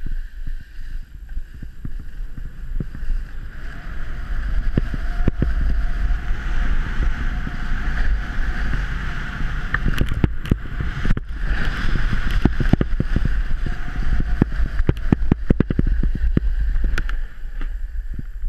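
Skis or a snowboard hissing and scraping over packed snow on a downhill run, with irregular clicks and knocks from bumps. Heavy wind buffeting on the helmet-camera microphone adds a low rumble. Both get louder a few seconds in as speed builds.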